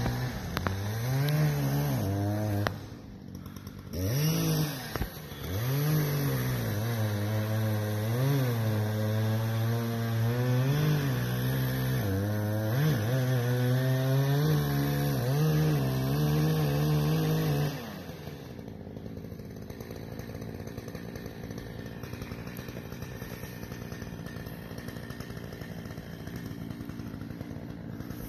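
Chainsaw cutting at the base of a tree trunk, the engine note rising and falling as the cut goes, with a brief dip about three seconds in. After about eighteen seconds the loud cutting stops and only a quieter, steady sound remains.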